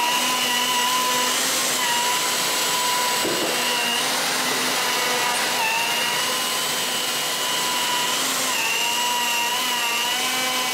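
Router fitted with a large flattening bit running in a slab flattening jig, surfacing a maple and epoxy slab, with dust extraction running. A steady whine over the rush of the extraction, its pitch dipping briefly a few times as the bit takes load.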